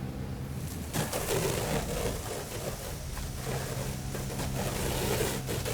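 Fire engine's diesel idling with a steady low hum, with a rushing hiss starting about a second in.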